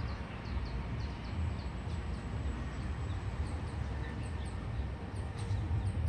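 Outdoor ambience: a small bird calling in runs of short, high, falling chirps, about four a second, over a steady low rumble.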